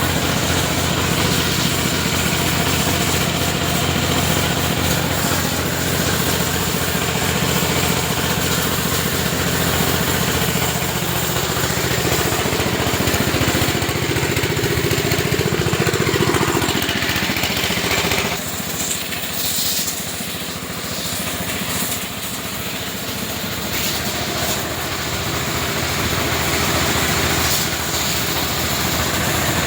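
Motor-wash pressure washer running, its motor humming under the hiss of the water jet. About 18 seconds in the motor hum drops away and the overall sound gets a little quieter, leaving mostly the spray noise.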